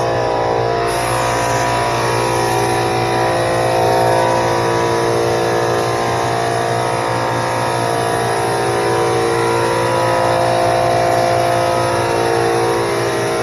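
LVLP gravity-feed spray gun (SprayIT R500) hissing steadily as it lays down silver base coat, starting about a second in, with a whooshing sweep as the gun moves. Steady background music plays underneath.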